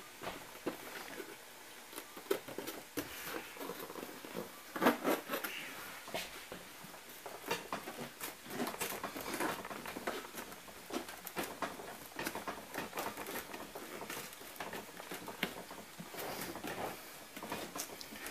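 Handling noise of a foam-board panel being fitted and pressed onto a 3D printer's frame: irregular light taps, rubs and crinkles, with a louder knock about five seconds in.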